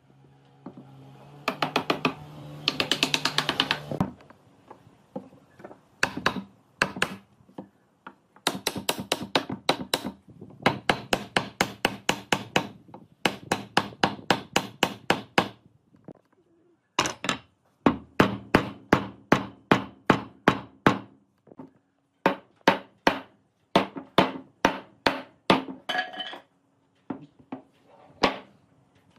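Hammer blows knocking the tenons of a pine frame home into their mortises: sharp wooden knocks in quick runs of about five a second, with short pauses between runs. A denser, faster rattle comes about two to four seconds in.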